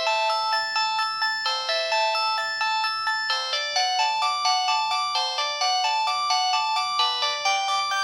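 Default polyphonic ringtone of a Pantech PG-C120 cellphone playing: a quick, bright melody of short notes and chords. It is all high-pitched, with no bass at all.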